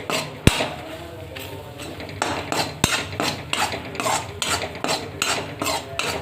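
A spoon stirring and scraping besan (gram flour) as it roasts in a kadhai, in a run of short strokes about three a second. Twice the spoon knocks sharply against the pan: about half a second in and just before three seconds.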